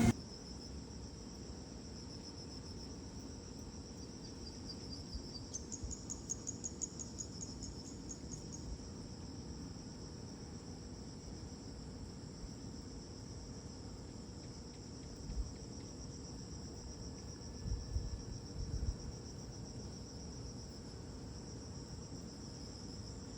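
Insects singing in a steady high-pitched drone, with a second insect's rapid pulsed trill joining for a few seconds about five seconds in. A low rumble with a few soft bumps underneath.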